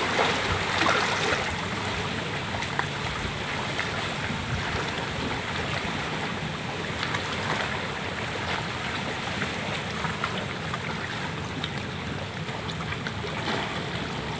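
Shallow seawater lapping and trickling among shoreline rocks: a steady wash with a few faint ticks and small splashes.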